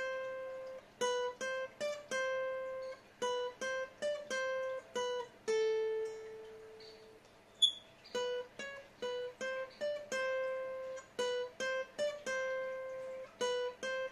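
Acoustic guitar playing a slow single-note lead melody high on the second string, around the 12th fret: short groups of picked notes with small pauses and a longer held lower note near the middle. A single sharp click about halfway through.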